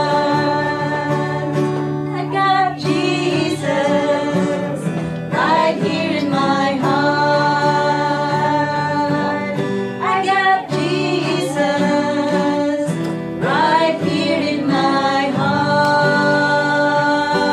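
A gospel song sung with guitar accompaniment, in phrases of long held notes.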